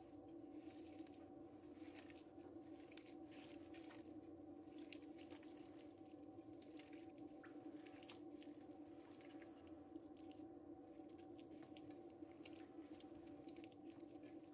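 Faint wet squelching and small clicks of bare hands squeezing and mixing soft butter, yogurt and egg in a glass bowl, over a steady low hum.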